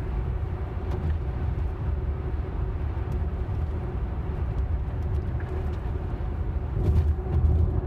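Steady road and tyre noise inside the cabin of a Tesla electric car driving on Autopilot, a low rumble that swells briefly near the end.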